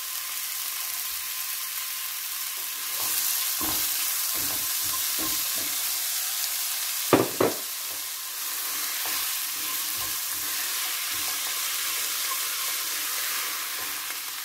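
Diced onion and red bell pepper frying in a little oil: a steady sizzle, with a silicone spatula stirring and scraping against the pan and a couple of louder knocks about seven seconds in.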